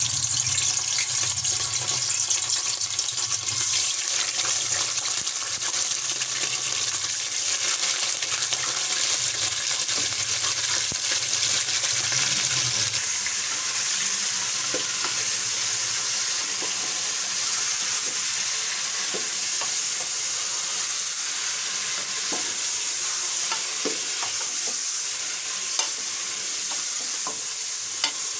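Pieces of meat sizzling loudly in hot oil in a pressure cooker as they are browned, with a wooden spoon stirring them and knocking faintly against the pot now and then.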